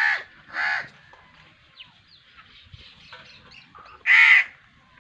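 A crow cawing: two caws in quick succession at the start and a third, louder caw about four seconds in. Fainter small-bird chirps can be heard between them.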